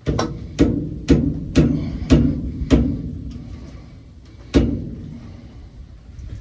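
Hammer blows on steel inside a New Holland RB560 round baler during a bearing and roller repair: six strikes about half a second apart, then one more about four and a half seconds in, each ringing briefly.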